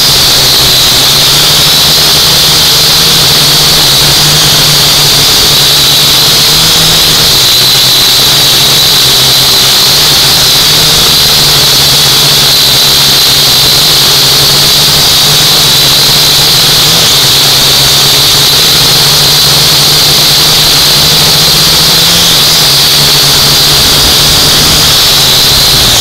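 UDI U818A-1 quadcopter's motors and propellers running in flight, heard up close through its onboard camera: a loud, steady high-pitched whine over a lower buzz, wavering slightly in pitch as the drone manoeuvres.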